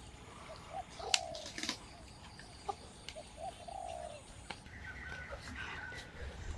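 A dove cooing: several short, low coos, with a few sharp clicks between them. From about two-thirds of the way in, higher, steadier bird notes join.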